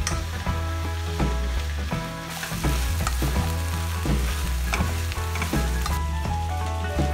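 Diced vegetables sizzling as they are sautéed for Korean curry in a non-stick frying pan, stirred with a wooden spatula that scrapes and knocks against the pan now and then.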